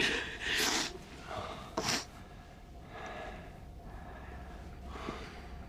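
A person breathing heavily in bed: two loud, hissing breaths in the first two seconds, then softer breaths, over a faint steady hum.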